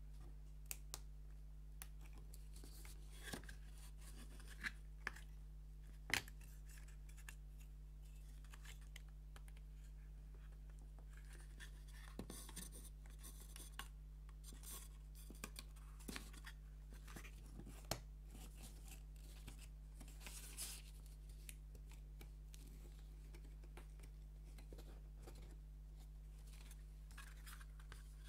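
Small wooden puzzle pieces being handled and fitted together: scattered light clicks and taps, the sharpest about six seconds in, with soft scraping and rubbing between them over a steady low hum.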